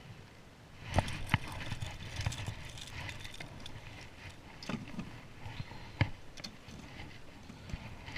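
Fishing rod, reel and gear knocking and clicking against a plastic kayak hull while a fish is fought and brought in: irregular sharp knocks, the loudest about a second in and again about six seconds in.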